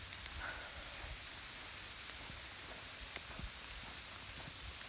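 Sleet falling steadily: an even hiss of ice pellets landing on the garden, with scattered sharp ticks as single pellets strike.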